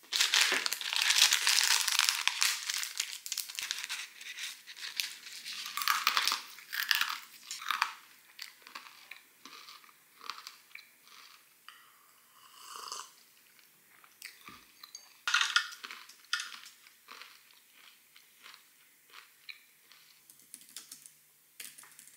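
Plastic snack wrapper crinkling loudly for the first few seconds as it is opened, then crunchy bites and chewing, broken by further crinkles of the packet.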